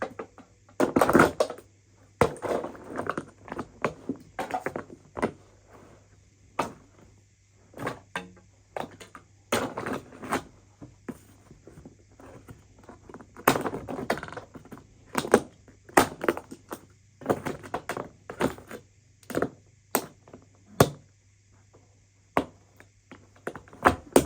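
Irregular knocks, taps and short clattering, crunching handling noises of hard parts, as a broken coffee machine is taken apart, over a faint steady low hum.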